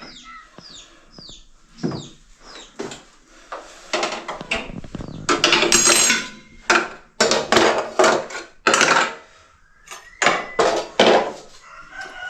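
Clattering and knocking of hard household objects being handled, with several longer scraping, rustling bursts in the second half.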